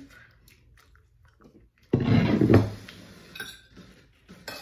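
Cutlery clinking and scraping on ceramic plates, with a louder clatter about two seconds in.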